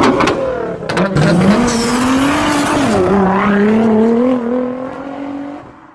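Sports car engine revving hard in a burnout, with tyre squeal. The engine note climbs, dips about three seconds in, then holds before fading out near the end.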